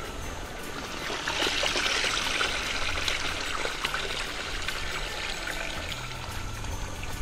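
Water trickling and splashing down a garden fountain's chain of stepped stone basins, louder from about a second in and easing toward the end.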